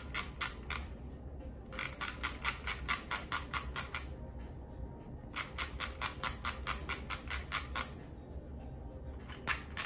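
Thumb-wheel film advance of a waterproof 35 mm film camera being wound with no film loaded, ratcheting in runs of rapid clicks, about four or five a second, with pauses of about a second between runs.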